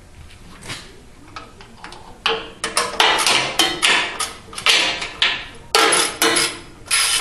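Socket ratchet wrench worked back and forth on a bolt: faint clicks at first, then from about two seconds in a quick run of loud ratcheting strokes, roughly two a second, as the bolt is backed out.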